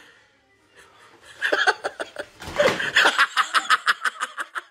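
A woman laughing hard in quick repeated 'ha-ha-ha' sounds, starting about a second and a half in after a quiet moment.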